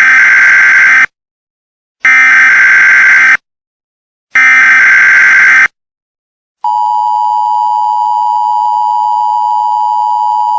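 Three loud, harsh digital data bursts of an Emergency Alert System SAME header, with short silences between them. About six and a half seconds in, the steady two-tone EAS attention signal begins.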